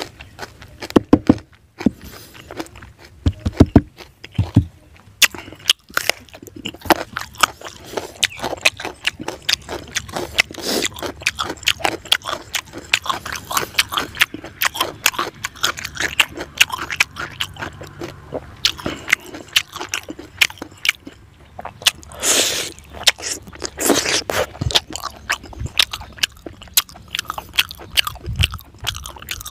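A person chewing and smacking while eating fried fish head and rice by hand: a steady run of many short, wet mouth clicks, with a few louder, longer mouth sounds about two-thirds of the way through.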